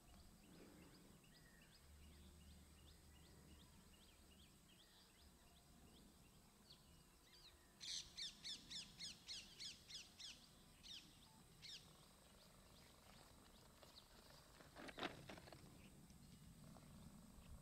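Faint outdoor birdsong: a run of small high chirps, then about eight seconds in a louder burst of about ten quick falling whistled notes, about three a second, and a single lower call about fifteen seconds in.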